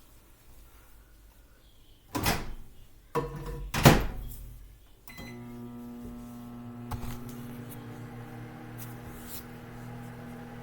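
Microwave oven: a few knocks as the door is shut and the bowl handled, then the oven starts about halfway through and runs with a steady hum.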